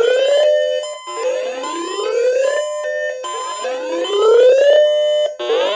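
Electronic emergency alert tone: a loud, rising whooping sweep repeated about every two seconds, with steady beeping tones between the sweeps, sounding ahead of a flash flood warning message.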